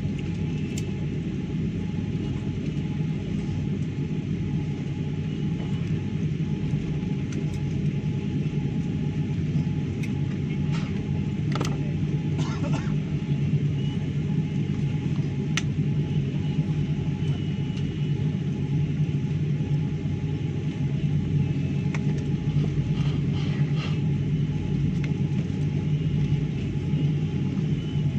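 Steady low rumble inside an airliner cabin while the plane taxis after landing, from the engines and the wheels rolling on the taxiway. A few faint clicks are heard over it.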